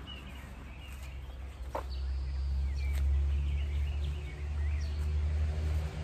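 Birds chirping over a steady low rumble, which grows louder about a second and a half in, with a few faint knocks.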